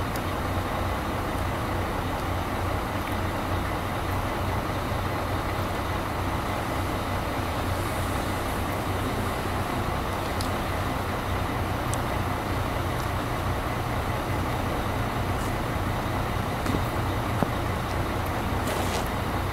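Steady low rumble of vehicle noise: a constant hum under an even hiss, with a few faint ticks.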